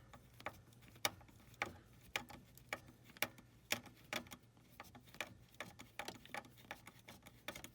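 Ratcheting tool clicking steadily, about two clicks a second, as Torx screws are backed out of a steering-column switch module.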